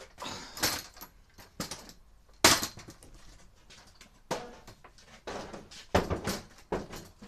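A ladder being handled and set back up: a string of irregular knocks and clatters, the loudest about two and a half seconds in.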